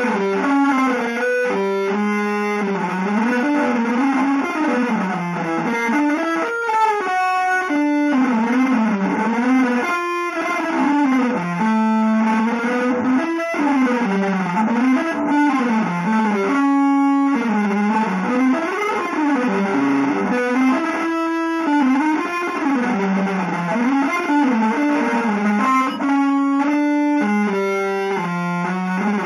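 Electric guitar improvising a winding, mostly single-note line in quick runs, with short breaks between phrases.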